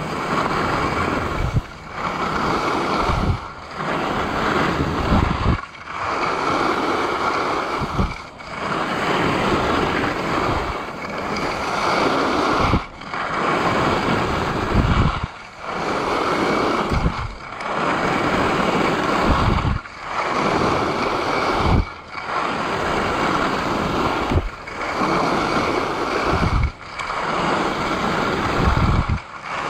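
Alpine skis hissing and scraping over groomed corduroy snow through linked turns, with wind rushing over the microphone. The noise swells and falls away about every two seconds, once per turn.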